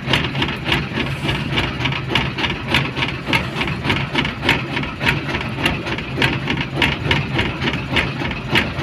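An engine running steadily with an even knock, about four or five beats a second, over a constant low hum.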